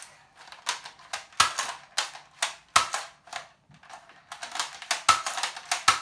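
Nerf revolver-style sniper blaster being worked and fired: a quick, uneven series of sharp plastic clicks and snaps, with several louder cracks among them.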